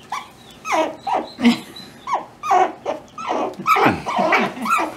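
Baby yellow-bellied marmot giving a quick series of short fussing calls, each falling in pitch, two to three a second, while being held and having its face wiped.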